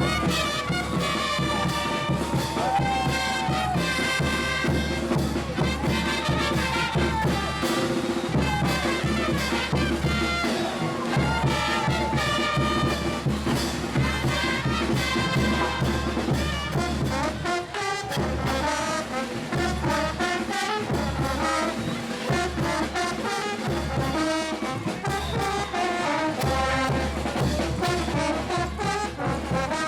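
Brass band playing traditional parade music: trumpets and trombones carrying a melody over a steady beat.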